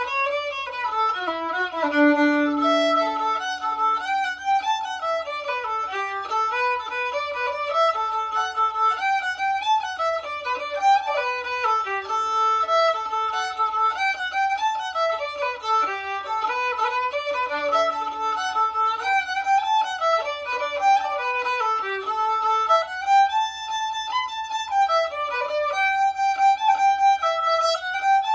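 Solo fiddle playing a lively Irish traditional tune: quick running melodic lines bowed note by note, with a few longer low notes between the runs.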